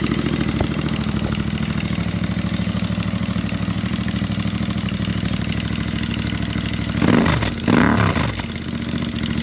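Royal Enfield Interceptor 650 parallel-twin idling steadily through Lextek slip-on exhausts, baffles still fitted, with an even pulsing beat. About seven seconds in, two quick throttle blips make the revs rise and fall.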